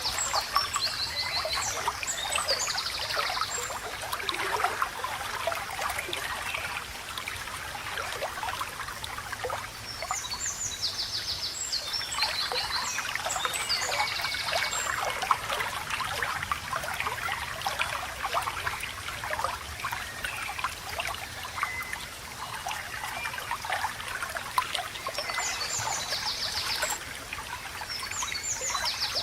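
Water running and babbling steadily, like a small stream over stones. Three bursts of fast, high trilled birdsong come over it: near the start, in the middle and near the end.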